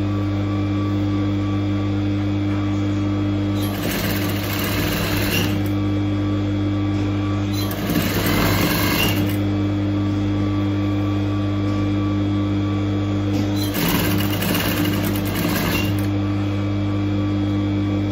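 Sewing machine running continuously, stitching layered fabric strips onto a thick cloth base, with a steady hum. Three times a louder, noisier stretch lasts about two seconds.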